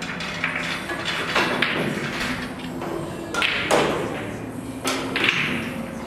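Scattered sharp clacks of billiard balls striking each other and dull thuds from play at neighbouring pool tables in a large hall.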